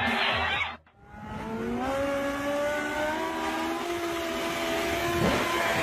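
An engine revving up over about a second, then running high with its pitch slowly falling, with a brief whoosh about five seconds in.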